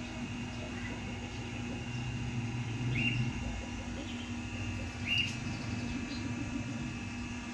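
Two short bird chirps, about three seconds in and again about five seconds in, over a steady low background hum.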